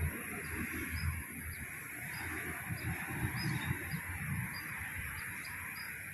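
Outdoor ambience: a series of short, high bird-like chirps over a steady high-pitched drone and an uneven low rumble.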